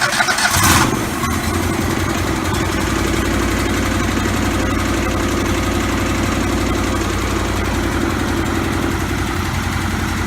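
Stump grinder's 38 hp Kohler engine starting: a loud, noisy first second as it catches, then running steadily. It is running after repair.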